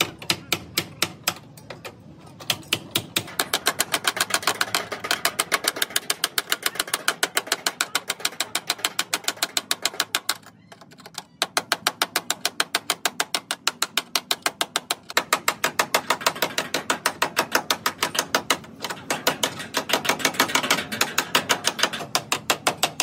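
Rapid hand hammering on car body sheet metal: a body hammer tapping the dented steel windscreen pillar over a flat steel tool held against it, about four to five light metallic strikes a second, pausing briefly about ten seconds in.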